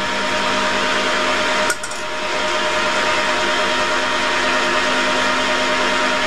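Metal-turning centre lathe running with its spindle turning, a steady hum and hiss with a short knock just under two seconds in.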